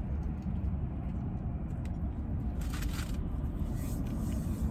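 Steady low rumble of a car's engine idling, heard from inside the cabin, with two brief crackling noises partway through and near the end.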